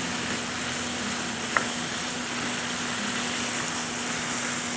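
Chickpeas in chutney sizzling in a frying pan on a high gas flame while they are stirred with a spatula, the heat drying off the last of the chutney's liquid. There is a single light click about a second and a half in.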